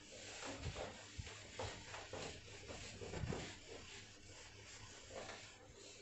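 Whiteboard duster rubbing across a whiteboard in irregular strokes, wiping it clean.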